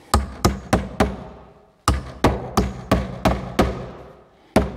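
Hammer driving nails into a wooden wall stud to mount a plastic electrical box: four quick blows, a pause, six more, then one more near the end, about three a second.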